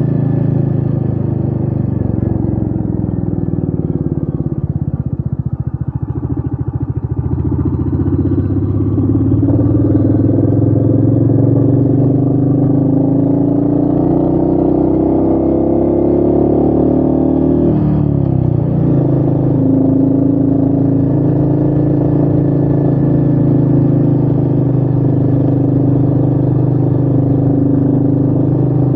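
Royal Enfield Meteor 350's single-cylinder engine under way: it drops to a low, slow thump, pulls steadily up in pitch, falls sharply at a gear change about eighteen seconds in, then holds a steady run.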